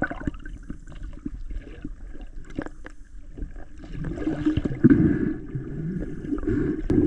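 Muffled water gurgling and sloshing, as picked up by a camera underwater, with scattered short knocks and a louder surge in the second half.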